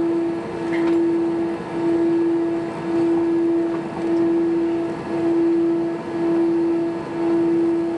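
Airbus A320 engines idling as the jet taxis after landing, heard inside the cabin: a steady drone that swells and fades about once a second.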